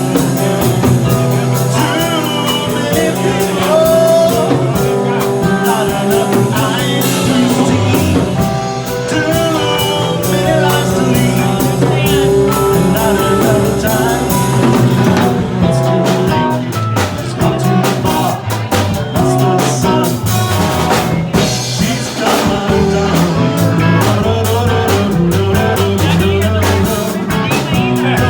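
A live band playing a song, with a drum kit keeping the beat and a singer.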